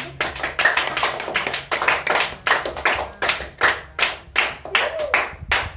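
Several people clapping their hands in a steady rhythm, about three claps a second.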